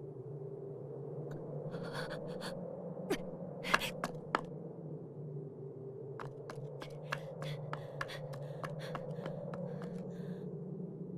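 Light footsteps on dry dirt, a quick regular series of taps in the second half, over a low steady drone, with a few sharper taps and scrapes earlier.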